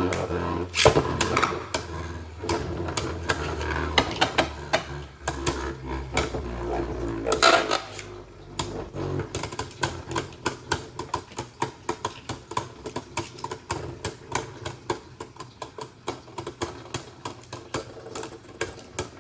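Beyblade Burst spinning tops battling in a plastic stadium. There is a low spinning hum with sharp clacks of the tops hitting about a second in and again near eight seconds. The hum then drops away into a fast rattle of small clicks as the tops slow and wobble against each other and the stadium.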